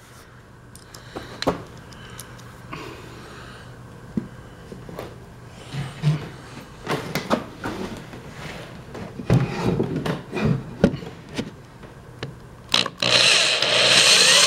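Scattered knocks and clatter of wooden boards and parts being handled, then near the end a power drill starts running, driving a small screw into the pallet-wood shelf.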